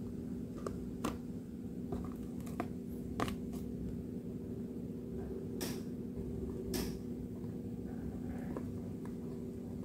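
Paper and card diorama pieces being handled and pressed into place: scattered light taps and two short brushing sounds, over a steady low hum.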